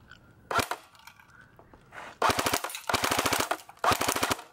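Spartan Imports T21 airsoft rifle firing on full auto: a short burst about half a second in, then a long burst of rapid shots from about halfway, a brief pause, and another burst near the end.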